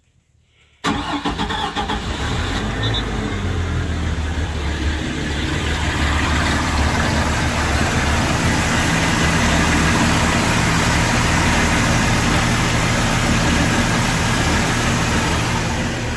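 Mercury MerCruiser 4.3-litre V6 sterndrive engine starting about a second in, catching readily on its first start after winter storage, then running steadily at idle.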